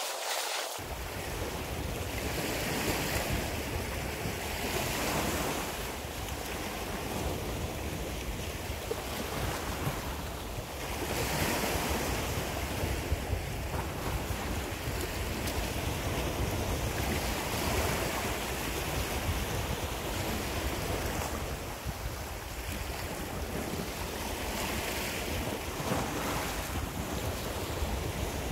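Sea waves washing and breaking over shoreline rocks, swelling and easing every few seconds, with wind rumbling on the microphone.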